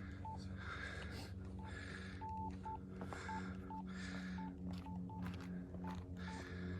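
Short electronic beeps at one pitch, about a dozen at uneven intervals, over a low steady hum and a windy hiss.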